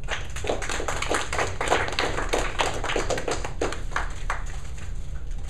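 A small audience clapping, a few people's hands at once, dying away about four seconds in.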